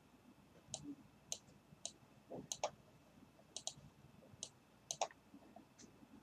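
Quiet room tone with about a dozen faint, sharp clicks at irregular intervals.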